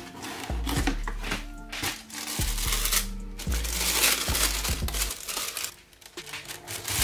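Cardboard shoebox opened and tissue-paper wrapping crinkling and rustling as it is pulled back from a pair of shoes, over background music with a steady bass line.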